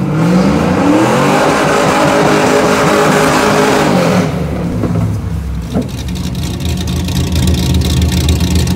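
Fourth-generation Chevrolet Camaro accelerating hard, its engine note rising and then holding for about four seconds before it cuts off. After a short gap, a C5 Corvette's V8 idles with a steady low rumble.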